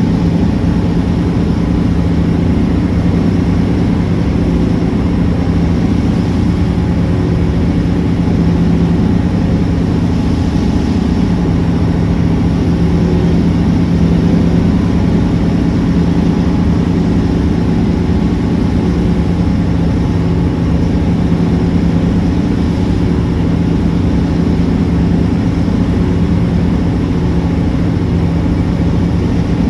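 Steady low engine drone, holding one pitch without revving or pauses.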